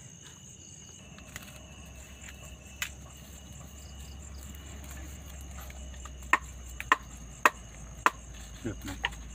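Crickets trilling steadily, with sharp knocks of food being chopped or pounded: one about three seconds in, then a run of four evenly spaced knocks about half a second apart near the end.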